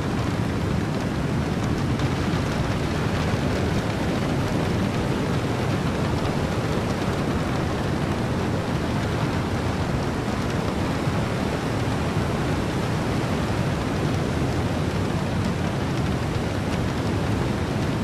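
Steady mix of heavy rain, wind and ocean surf: a dense, even roar, deepest in the low end, with no breaks or single claps.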